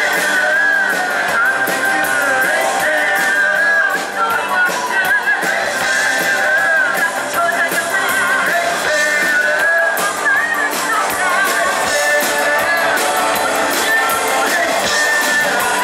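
Live rock band playing: electric guitars and drums with a wavering lead melody line above them, at a steady beat.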